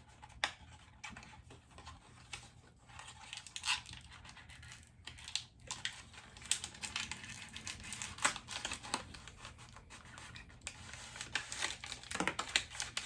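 Product packaging crinkling and rustling as it is handled and opened, with scattered irregular clicks and taps.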